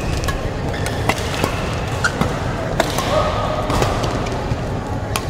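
Badminton rackets striking a shuttlecock during a rally: sharp cracks at an irregular pace, roughly one every half second to second, over the steady background noise of a sports hall.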